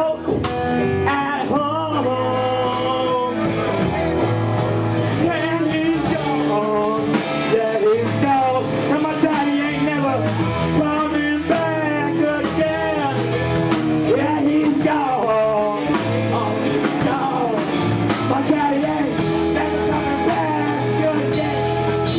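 A band playing a blues and rock-and-roll style song with a voice singing over it, performed live.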